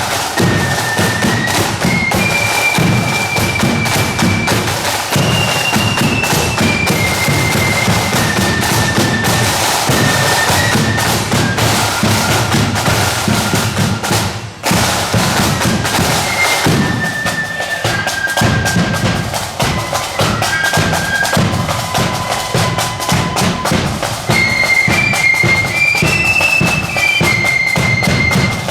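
Marching flute band playing a tune: shrill flutes carrying the melody over a steady beat of drums. The music breaks off briefly about halfway through, then the tune starts again.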